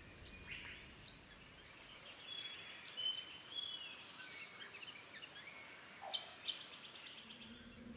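Faint nature ambience: a steady, high insect trill with scattered short bird chirps over it.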